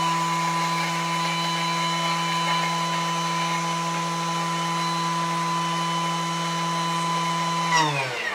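Thermomix motor spinning its blade to mill granulated sugar into powdered sugar: a steady whine that winds down in pitch and stops near the end.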